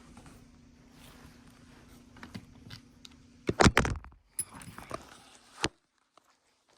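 Key and Honda ignition lock housing being handled on the bench: a run of small metallic clicks and knocks, loudest in a cluster just after the middle, with a sharp click near the end.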